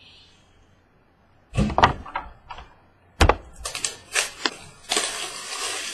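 Objects handled on a desk. A few knocks and clicks, one sharp knock about three seconds in, then a quick run of clicks and a rustling, scraping hiss near the end.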